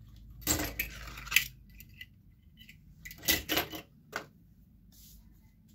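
Loose strips of steel staples clinking and rattling as they are handled and dropped onto the pile, in two short bursts about half a second in and about three seconds in, with a single click just after four seconds.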